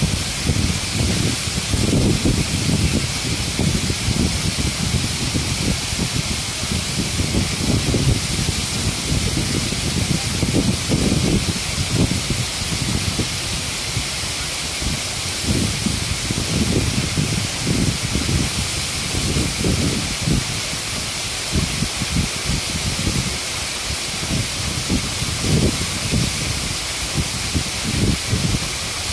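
Waterfall: falling water making a steady rushing hiss, with uneven low rumbling surges underneath.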